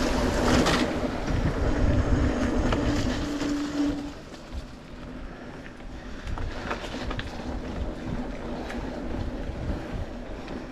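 Wind buffeting the microphone of a bicycle rider on the move, with the bike rattling over a rough trail. The wind rumble eases after about four seconds, leaving scattered clicks and knocks from the bike.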